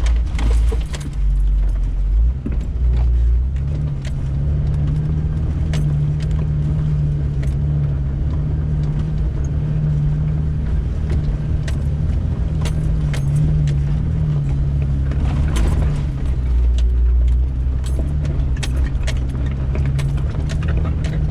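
Off-road vehicle engine running steadily at low revs while crawling over rocks, with a deep rumble and scattered sharp clicks and knocks from rocks and the vehicle's body and suspension.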